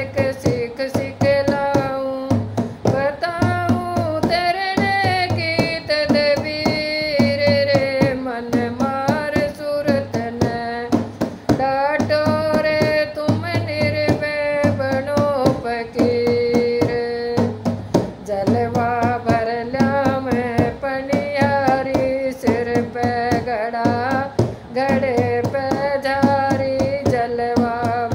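Hindi devotional bhajan music: a melody held on long, wavering notes over a steady, repeating drum beat.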